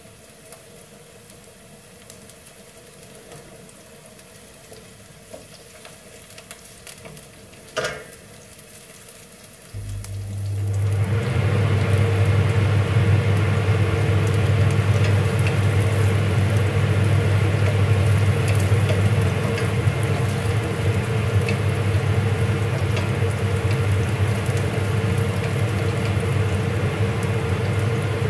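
Chopped vegetables frying in oil in a stainless steel sauté pan, stirred with a wooden spatula. About ten seconds in, a loud steady low hum with a rushing noise starts suddenly and carries on.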